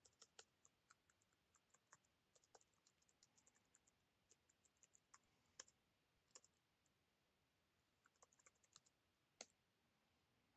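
Faint computer keyboard typing: irregular key clicks throughout, with a few louder single clicks around the middle and near the end.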